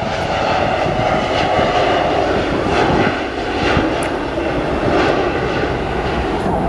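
Embraer regional jet's twin turbofan engines at takeoff power through the takeoff roll and liftoff: a loud, steady jet roar.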